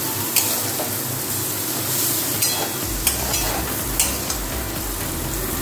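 Mixed vegetables frying in mustard oil in a steel kadai, sizzling steadily while a steel spatula stirs them, with a few sharp clicks and scrapes of the spatula against the pan.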